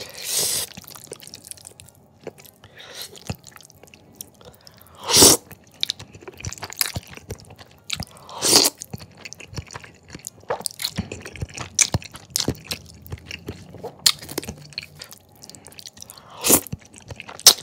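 A person slurping and chewing thick, sauce-coated jajangmyeon noodles: four loud slurps, near the start and about five, eight and a half and sixteen and a half seconds in, with wet chewing and lip smacks in between.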